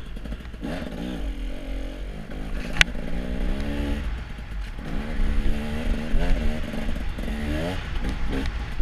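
Snowmobile engine revving up and down again and again under load in soft snow, over a steady low rumble. There is one sharp knock about three seconds in.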